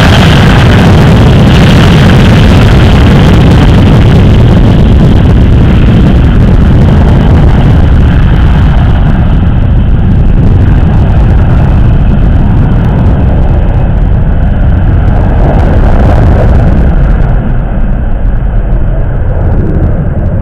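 Airbus A321 jet engines at takeoff thrust during the takeoff roll: a loud, steady rush of engine noise. Its hiss fades after about halfway as the airliner draws away down the runway, and the aircraft rotates near the end.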